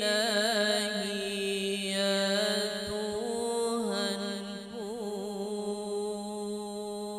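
A man's solo voice chanting an Arabic qasidah, drawing out one long melismatic vowel with wavering ornamental turns.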